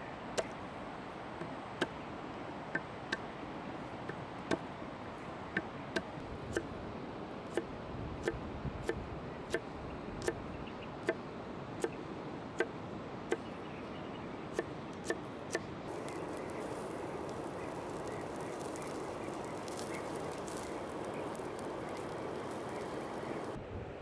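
Knife chopping garlic and green herbs on a wooden cutting board: sharp, irregular taps of the blade on the wood, roughly one or two a second. The chopping stops about two-thirds of the way through, leaving a steady rushing outdoor background noise.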